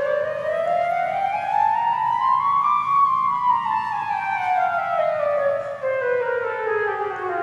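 Siren wailing: one slow rising tone that peaks about three seconds in, then falls slowly.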